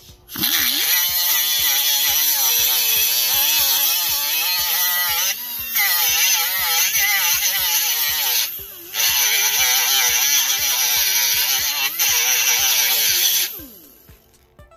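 Small handheld cut-off tool with an abrasive disc grinding the steel of a car's upper control arm. It runs with a loud hiss and a whine that wavers in pitch as the disc is pressed into the metal, lets off briefly a few times, and winds down near the end.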